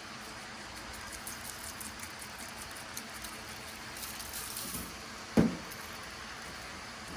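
Light handling noises from food prep on a work surface: a few small ticks and a short rustle, then one sharp thump about five seconds in, like something set down hard, over a steady background hiss.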